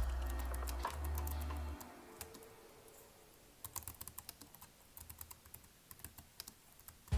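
Typing on a computer keyboard: a quick, uneven run of key clicks through the second half. Lo-fi music with a bass line plays over the first couple of seconds and then stops.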